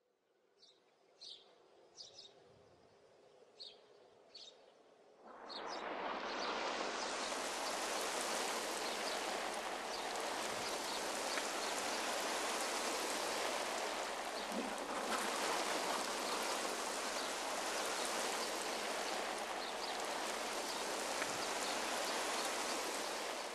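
A few faint water drops dripping, then about five seconds in a steady stream of falling water fades in and keeps running, like a shower.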